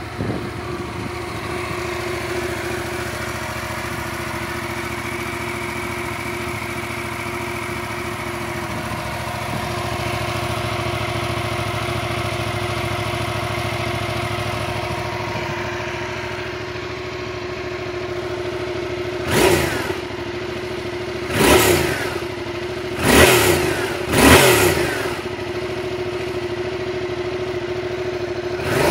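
Yamaha MT-07's 689 cc CP2 parallel-twin engine on its stock exhaust, idling steadily, then revved in four short throttle blips about two-thirds of the way through, with a fifth beginning right at the end.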